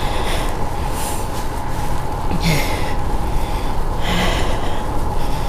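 Cyclist breathing hard while pedalling, four loud breaths a second or more apart, over a steady rush of wind and road noise on the microphone.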